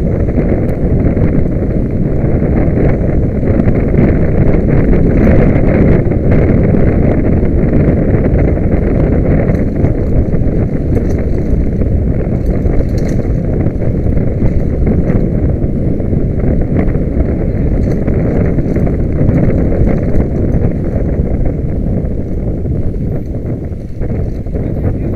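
Loud, steady wind buffeting on the microphone, with faint scattered ticks and rattles.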